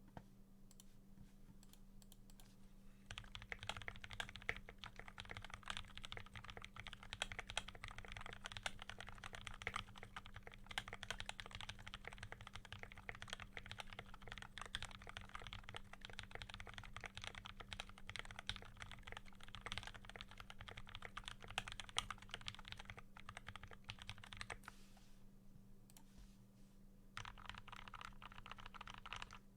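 Continuous fast typing on a custom 60% mechanical keyboard with lubed and filmed Durock T1 tactile switches, an aluminium plate and a walnut wooden case: a dense stream of key clacks. It begins with a few scattered keystrokes, breaks off briefly near the end, then resumes.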